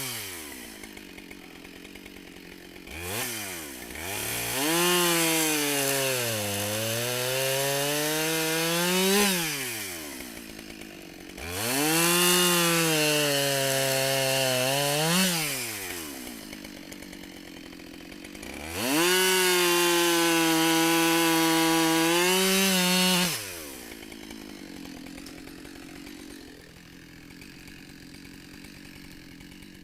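Husqvarna 572XP two-stroke chainsaw with a 28-inch bar bucking black locust: three bursts at full throttle, the engine pitch sagging under the load of the cut and climbing again as the first two cuts finish, the third held steady. Between the bursts and near the end it drops back to idle.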